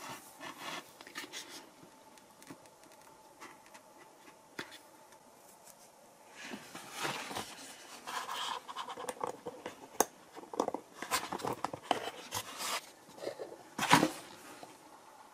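A foam airframe nose being handled, with scratching, rubbing and small clicks as a camera board is fitted into it and needle-nose pliers work inside the opening. The handling gets busier about six seconds in, with the sharpest clicks near ten and fourteen seconds.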